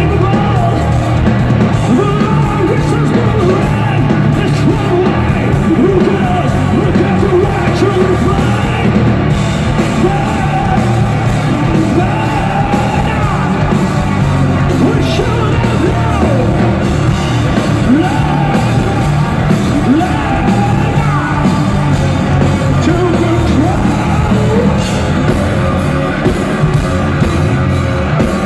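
Live metal band playing loudly: distorted electric guitars, bass and drums, with a singer's shouted, yelled vocals over them.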